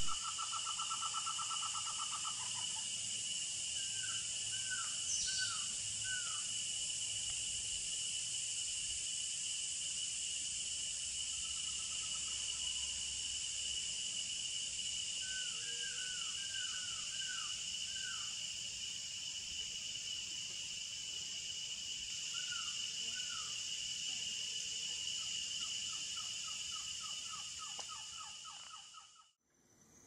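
Constant chorus of cicadas, a steady high-pitched drone, with trogons calling over it in several short runs of soft, repeated down-slurred notes. Everything fades out near the end.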